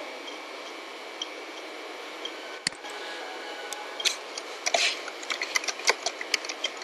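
Computer keyboard being typed on: sparse key clicks at first with one louder click a little before halfway, then quick, irregular taps through the second half, over a steady hiss.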